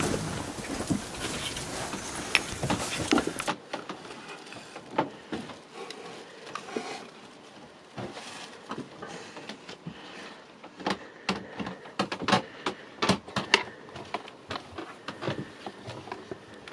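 Household objects being handled in a small room: scattered sharp clicks and knocks, coming thickest about eleven to fourteen seconds in. A louder stretch of steady noise cuts off sharply about three and a half seconds in.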